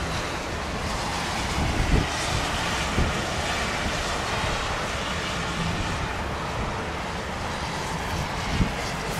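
Steady roar of a Boeing 787's jet engines as it rolls along a wet runway, mixed with the hiss of rain and spray. Wind buffets the microphone in a few low thumps.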